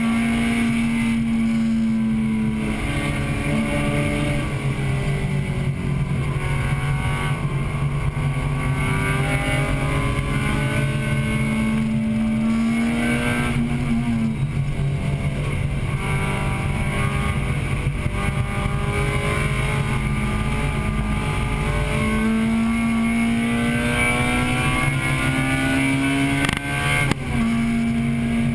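Acura Integra Type-R's 1.8-litre VTEC four-cylinder engine at racing revs, heard inside the cabin. The engine note climbs steadily under acceleration, then falls back and climbs again several times.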